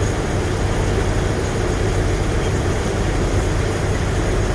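Peterbilt semi-truck's diesel engine idling with a steady low rumble, heard from inside the cab.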